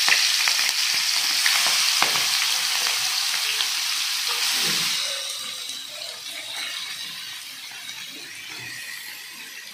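Food frying in hot oil in a kadhai: a loud, even sizzle, with a few clinks from stirring. The sizzle is strongest over the first five seconds, then dies down to a quieter hiss.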